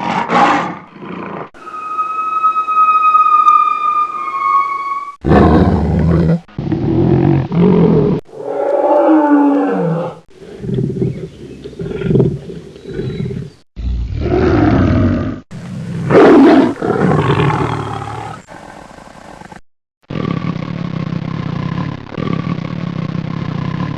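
Tiger roaring and growling in a string of separate loud calls, each starting and cutting off abruptly as if spliced together; early on one call is a higher, drawn-out tonal cry that falls slightly at its end.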